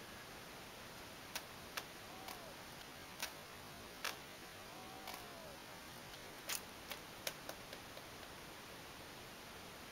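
Katana cutting through a bamboo pole in quick succession, the cut sections clattering onto a concrete floor: a series of about nine short, sharp clicks and clacks spread over several seconds against faint hiss.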